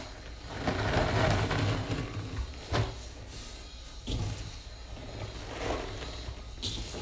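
Dry sponge packed with Comet cleanser powder being squeezed and rubbed by hand, the powder crunching and scraping in uneven strokes. It is loudest about a second in, with two sharp taps near three and four seconds.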